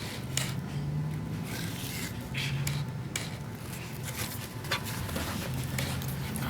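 Servo motor of an Atlas AT4420 double-needle walking-foot industrial sewing machine humming in short spells, with a few scattered clicks and rustles in between.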